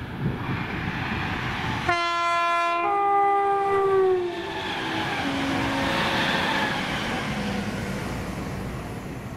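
ScotRail Class 318 and Class 320 electric multiple units, coupled together, sound a two-note horn about two seconds in, the second note sliding down in pitch as they pass. A rush of wheel and air noise follows as the train runs by, fading toward the end.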